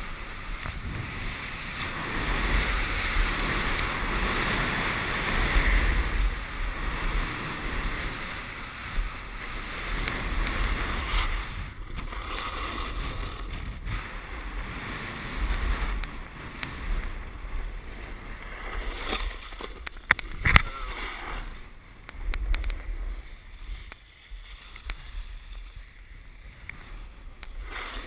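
Snowboard sliding down a groomed slope: the board scraping and hissing over the snow, with wind rushing and buffeting on the microphone, loudest in the first few seconds. A single sharp knock about two-thirds of the way through.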